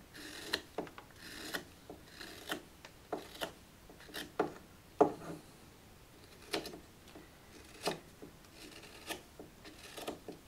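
A carving knife shaving a wooden spoon by hand: about a dozen quick slicing strokes, each a short scraping hiss, irregularly spaced, the sharpest about halfway through.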